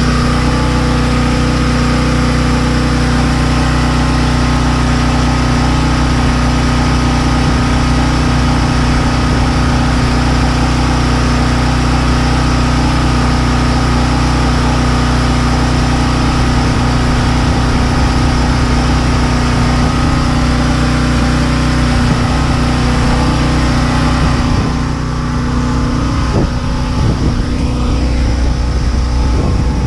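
An engine or motor running steadily with a low, even hum. About 25 seconds in, the higher part of the sound fades and a few short knocks come through.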